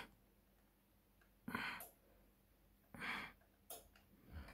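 Three short, breathy sighs close to the microphone over a quiet room. The CRT monitor gives no degaussing thump or hum while its degauss function runs: the Samtron 96BDF's degauss circuit is not working, its relay likely damaged.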